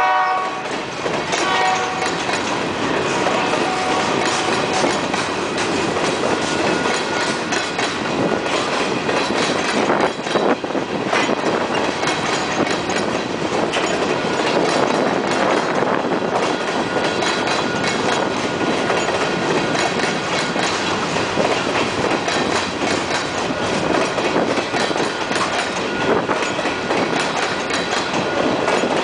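A freight train's covered hopper cars rolling steadily past a grade crossing, with a continuous rumble and a rapid clatter of wheels over the rail joints and crossing. The locomotive horn's last blast fades out within the first two seconds.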